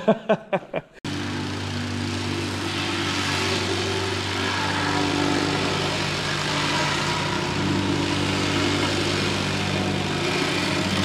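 An engine running steadily at a constant speed. It cuts in abruptly about a second in and holds unchanged.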